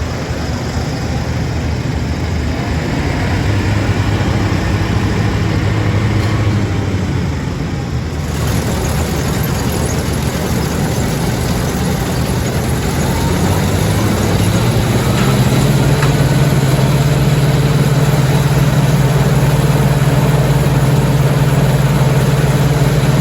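Heavy farm-machinery diesel engine running steadily; about two-thirds of the way through its pitch steps up and holds at the higher speed.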